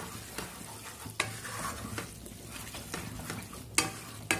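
Wooden spatula stirring and scraping a thick masala paste frying in oil in a stainless steel kadai, over a light sizzle. A few sharp knocks of the spatula on the pan stand out, the loudest about three-quarters of the way in and another just before the end. The paste is fried down, with oil separating at the edges.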